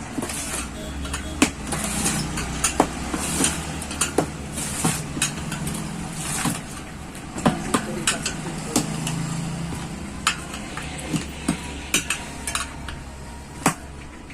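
Tyre levers clinking and knocking on the metal rim of a Royal Enfield Bullet 350's front wheel as the tyre is levered back on after a puncture repair: sharp, irregular metal clicks, one or two a second, over a steady low hum.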